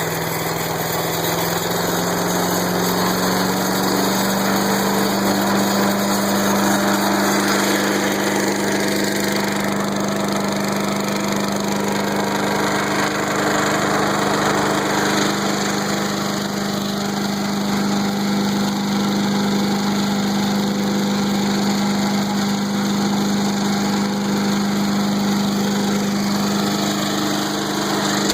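MTD woodchipper's small gas engine running steadily while it warms up after starting. Its pitch climbs slightly in the first couple of seconds, then holds even.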